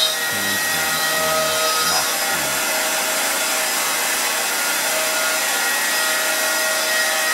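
CNC router spindle driving a 9 mm high-speed steel end mill that spirals down into Douglas fir, cutting the wood. Steady whine over a continuous rasp of chips being cut.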